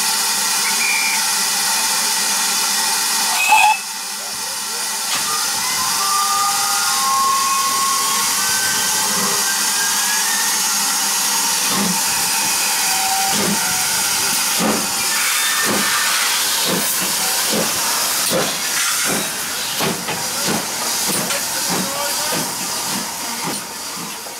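Steam locomotive, GWR 4575 class 2-6-2 tank engine No. 5542, hissing steam at a standstill, with a brief louder burst near four seconds in. About halfway through it sets off: its exhaust chuffs start slow and quicken steadily as it gets under way.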